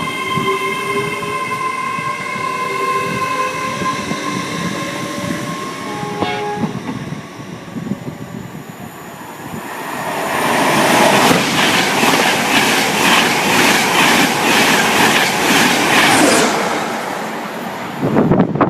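A train running past at speed: a loud rush of noise with a rhythmic clatter of wheels over rail joints lasting about six seconds, after a steady whining tone that fades away over the first half.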